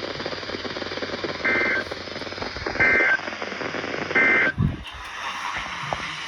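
Three short bursts of Emergency Alert System end-of-message data tones, each a harsh two-tone buzz about a third of a second long, spaced about 1.4 seconds apart over radio hiss. Just after the third burst there is a low thump as the broadcast audio cuts to a quieter hiss.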